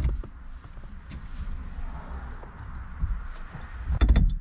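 Handling knocks and rattles of an aftermarket steering wheel being pushed onto its quick-release hub, with a cluster of loud knocks about four seconds in. The wheel does not click in, because the quick-release adapter is bolted on out of line.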